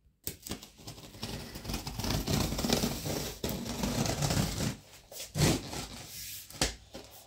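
Scissors cutting the packing tape along the seam of a cardboard box: a continuous slicing and scraping of blade on tape and cardboard, with two louder sharp sounds about a second apart near the end.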